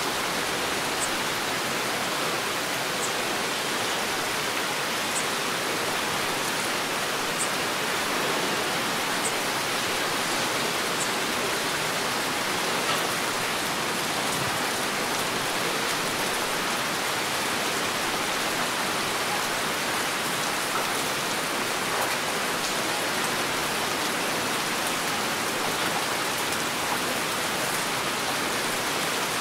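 Heavy rain falling steadily, a dense, even hiss with no letup. A few faint high ticks of single drops stand out in the first ten seconds or so.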